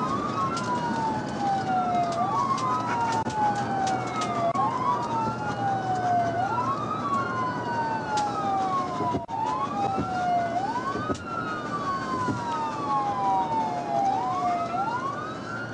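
Police siren in wail mode, each cycle rising quickly and falling more slowly, repeating about every two and a half seconds, heard from inside a pursuing patrol car over steady road noise. Near the end a second siren's wail overlaps the first.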